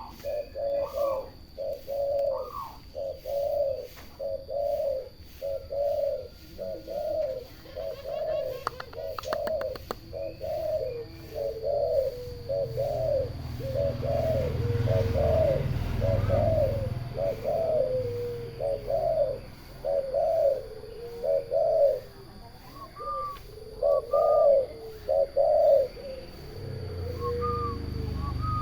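Turtle doves cooing in a long, even run of short repeated coos, some overlapping notes sliding down in pitch.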